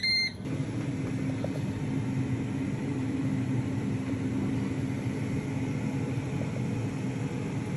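Ninja Foodi MAX dual-zone air fryer running, a steady whirring fan hum, with a short high electronic beep right at the start.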